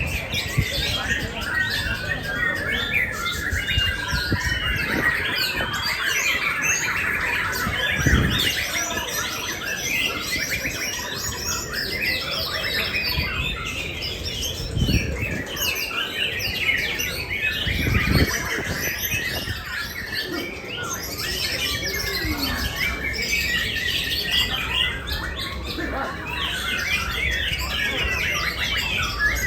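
Many caged songbirds singing at once, a dense chorus of overlapping chirps and trills, with a few dull low thumps.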